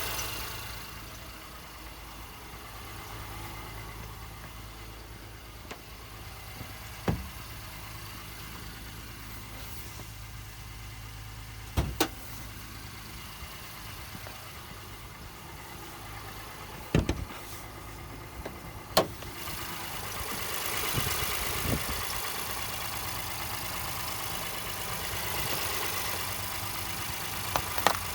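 2018 Honda Ridgeline's V6 idling, with short high-pitched chirps or squeaks from the passenger side of the engine, about six at irregular intervals and not in step with engine speed. This is a cold-start chirp that the owner says goes away once the engine warms up.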